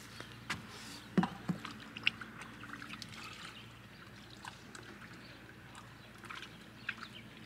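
Faint clicks and light knocks of fishing tackle being handled at an open tackle box, with the loudest about a second in and again at about two seconds.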